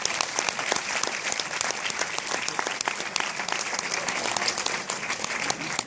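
Audience and the people on stage applauding: dense, steady clapping that falls away at the very end.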